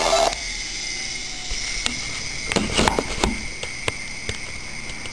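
Emulated Commodore 64 SID chiptune music cuts off about a third of a second in, as the gadget is switched off. After that a steady high whine remains, with scattered clicks and a short cluster of knocks a little past halfway, from handling the device.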